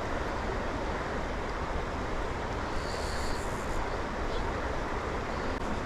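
Steady rushing noise of fast-flowing creek water, mixed with wind on the microphone.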